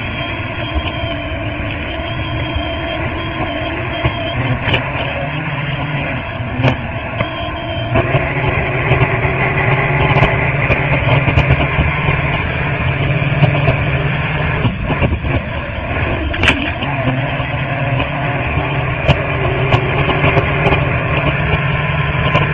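Racing hydroplane engines running steadily, growing louder about eight seconds in.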